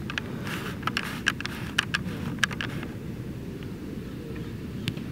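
Steady low outdoor rumble, with a run of sharp taps and clicks in the first three seconds.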